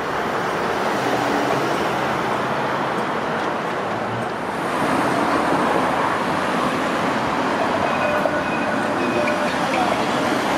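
Road traffic passing: a steady rush of car engines and tyres on the roadway.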